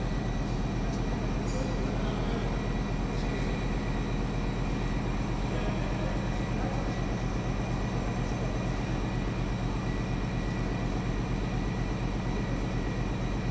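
Steady, unbroken machinery drone of a diesel power plant's engine hall: a low hum with several steady high tones, and no distinct knocks or clanks.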